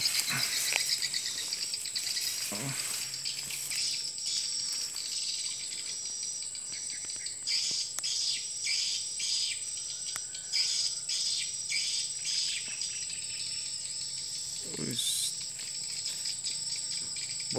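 A dense chorus of insects: a steady high-pitched whine with faster pulsing trills beneath it.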